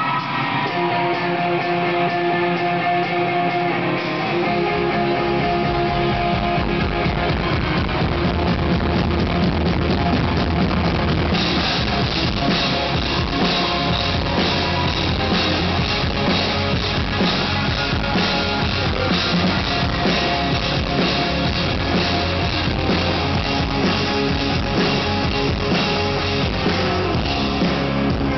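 Live rock band playing, led by electric guitar, recorded from the audience. Bass and drums come in about four seconds in, and cymbals join around eleven seconds in.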